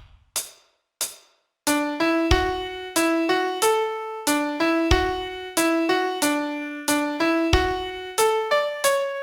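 Two sharp count-in clicks, then about two seconds in a piano starts playing a song melody over chords, each note struck and decaying.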